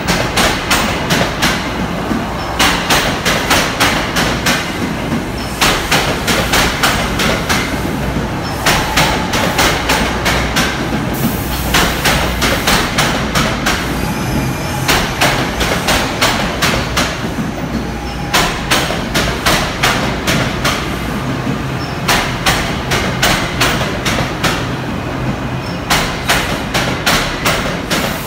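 NJ Transit GE Arrow III electric multiple-unit train rolling past, its steel wheels clattering over rail joints in quick clusters of clicks every two to three seconds as each car's trucks cross, over a steady rumble.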